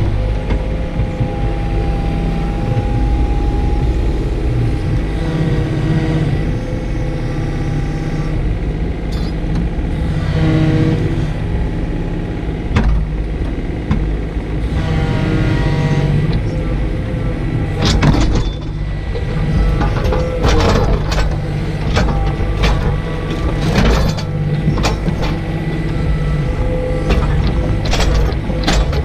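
Takeuchi TB125 mini excavator's diesel engine running under load, with a whine from the hydraulics that changes pitch as the arm carries a log in its bucket and thumb. In the second half comes a run of knocks and clunks as the log is set down onto a stack of logs.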